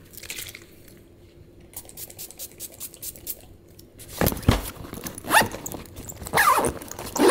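Items being packed into a nylon backpack: faint rustling and small clicks, then from about four seconds in several louder knocks and scrapes as plastic containers are dropped in and the fabric is shifted.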